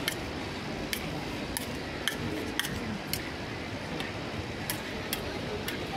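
Metal spatulas tapping and scraping on the steel cold plate of a rolled ice cream griddle, sharp ticks coming irregularly about once or twice a second, over a steady low hum.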